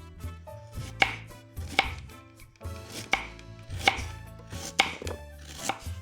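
Knife chopping food on a cutting board: six sharp cuts, spaced a little under a second apart.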